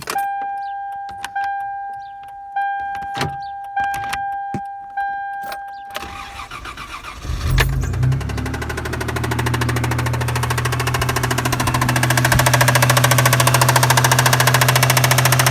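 A 1996 Toyota Tacoma's 3.4 L 5VZ-FE V6. An electronic warning chime repeats about every second with a few clicks, then the engine starts about seven seconds in. It then runs with a loud, rapid, even tapping, which the owner suspects could be rod knock.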